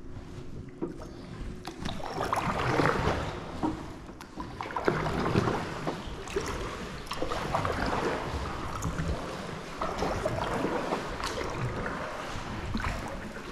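Kayak paddle strokes in water: a splash and drip from the blades every couple of seconds as the kayak is paddled through a flooded rock tunnel.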